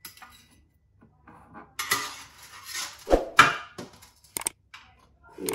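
Metal slotted spatula scraping and clinking against a baking tray and wire cooling rack as a baked toast is lifted off and set down, with one louder knock about three seconds in and a few small clicks after.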